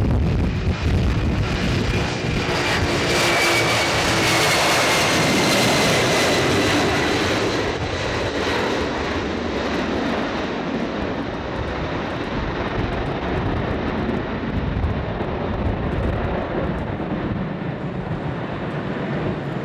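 Four-engined Boeing 747 Classic jet airliner at takeoff power, rolling, lifting off and climbing away: a loud steady jet roar with a high engine whine that slides down in pitch over the first several seconds as the plane passes.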